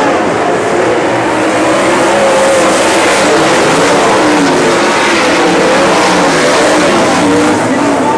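A field of USAC sprint cars racing on a dirt oval, several V8 engines running at once and rising and falling in pitch as the cars go through the turns.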